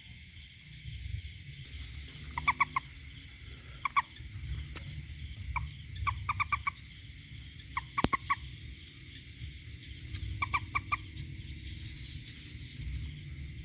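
A toad calling in short bursts of about three to five quick pulsed notes, the bursts repeated every second or two, over a steady low rumble.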